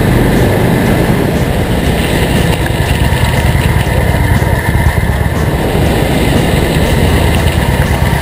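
Harley-Davidson Touring motorcycle's V-twin riding at about 100 km/h: steady engine and road noise with heavy wind rumble.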